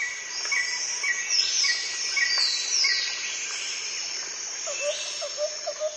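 Birds and insects calling: a short chirp repeated about twice a second, with several higher falling whistles over it.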